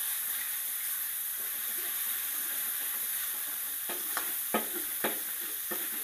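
Minced pork and garlic sizzling in hot oil in a wok, a steady hiss. From about four seconds in, a spatula knocks and scrapes against the wok several times as the meat is pressed apart so it doesn't clump.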